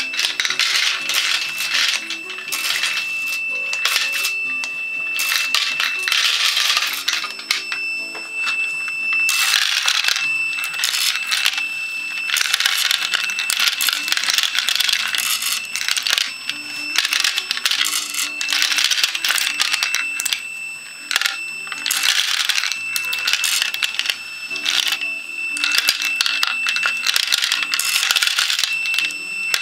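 Jacketed .223 rifle bullets clattering and clinking against each other and the clear Lexan bowl as a homemade motor-driven bullet collator turns them over to feed them.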